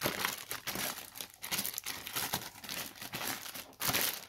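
Plastic courier mailer bag crinkling and rustling in irregular strokes as it is pulled and torn away from a cardboard box, loudest about a second before the end.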